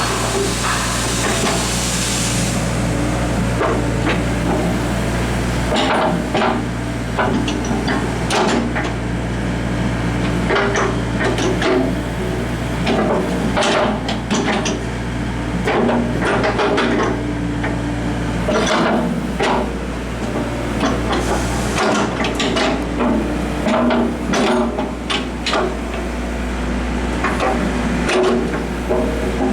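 Hyundai R55 mini excavator running with a steady low engine hum that dips for a few seconds midway, under many sharp knocks and clanks as the machine is worked.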